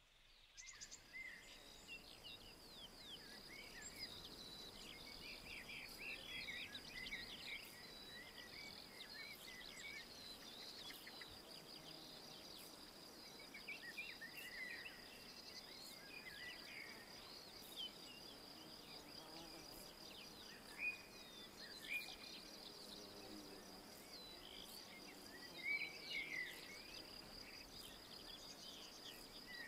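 Several songbirds singing and chirping in woodland, with short warbled phrases throughout and a few louder sharp calls in the second half, over a steady high-pitched insect trill.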